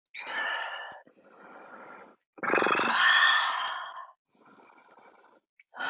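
A person breathing forcefully through the mouth as a yoga breathing exercise. There are three loud, drawn-out exhalations, the middle one beginning with a short voiced sound, and a quieter inhalation between each.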